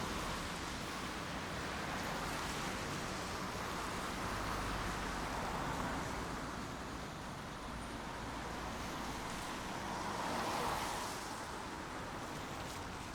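Steady rain, an even hiss that swells gently and eases twice.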